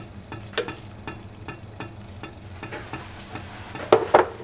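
Light metallic clinks and ticks from a spoon and a stainless-steel teapot as loose black tea goes into just-boiled water, with two louder clinks close together about four seconds in. A faint sizzle runs underneath.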